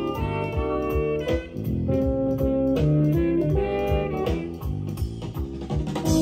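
Music from a vinyl record, played on a Pioneer PL-51 turntable with a Shure M3D cartridge through a vintage JBL SE400S power amplifier into Klipsch Synergy F1 speakers, with a steady beat.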